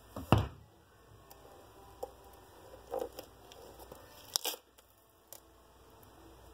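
A sharp knock shortly after the start as the leather boot is handled, then scattered small crunching and crackling as fingers pick and tear at the crumbly cork filler under the boot's removed sole.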